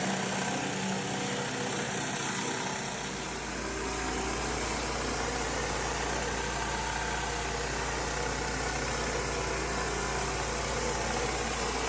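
Small gasoline engine of paver-cleaning equipment running steadily, with a deep low hum joining about three seconds in.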